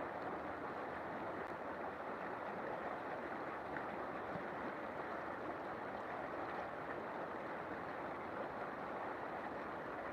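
River water flowing steadily over stones, an even rushing and babbling.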